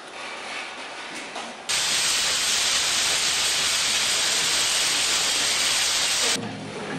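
A loud, even hiss starts abruptly about two seconds in and cuts off abruptly a little before the end. Fainter mechanical workshop noise comes before it.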